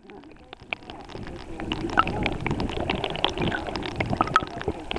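Flowing water gurgling and bubbling in the test channel, with many small crackles and pops, getting louder about a second and a half in.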